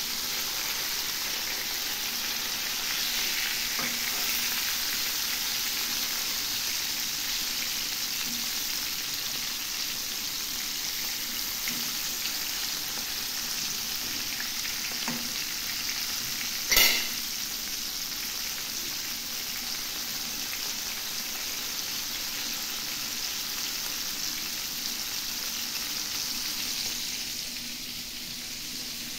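Small flour-dredged whole fish shallow-frying in hot oil in a pan: a steady sizzle, with a fork turning the fish. One sharp knock a little over halfway through, and the sizzle drops slightly near the end.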